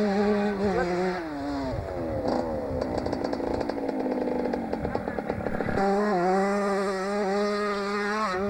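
Honda CR125 two-stroke motocross engine held at steady high revs. About a second in the revs fall away into a few seconds of low, uneven burbling. Then the throttle opens again and it climbs back to steady high revs as the bike comes past.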